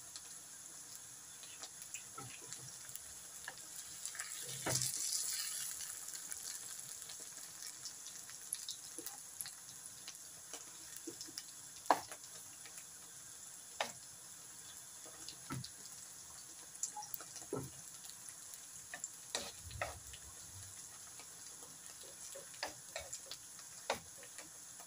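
Sliced bitter gourd (karela) frying in oil over high heat in a non-stick wok: a steady sizzle that swells for a couple of seconds about five seconds in. Scattered clicks and knocks come from the spatula against the pan as the slices are stirred.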